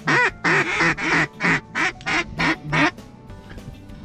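Hand-blown mallard duck call: a loud run of about nine quick quacks, each a little shorter and quieter than the last, ending about three seconds in, used to call in passing ducks.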